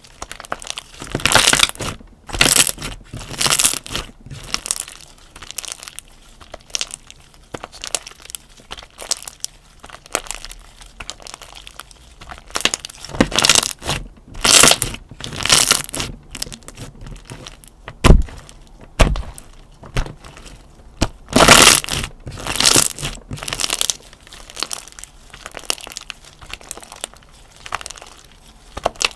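Hands squishing, pressing and stretching slime, giving irregular bouts of crackly, sticky pops and snaps, with one sharp snap about two-thirds of the way through.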